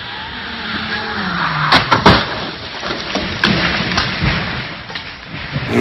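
A car speeding along a wet road, its engine note falling and tyre hiss building, then crashing with a cluster of loud bangs about two seconds in. A few smaller knocks follow as debris settles.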